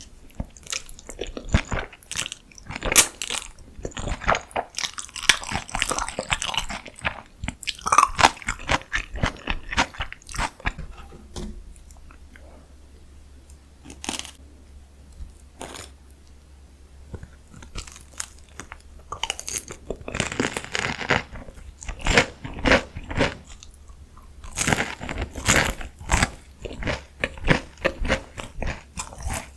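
Close-miked eating: crunchy bites into deep-fried food and chewing, in bursts of crisp crackling separated by a quieter stretch of softer chewing around the middle.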